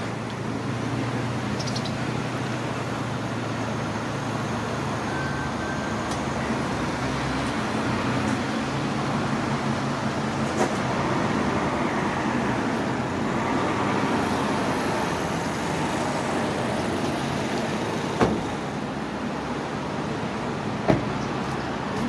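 Steady road traffic noise, a continuous rush of passing cars, with three sharp clicks or knocks in the second half.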